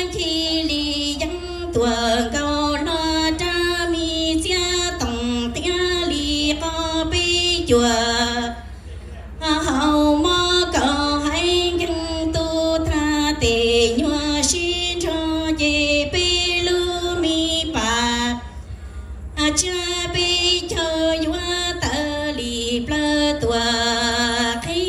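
A woman sings Hmong kwv txhiaj (traditional sung poetry) solo and unaccompanied into a microphone. Her long phrases are made of held, wavering notes that glide between pitches. She pauses briefly twice, about 9 and 18 seconds in.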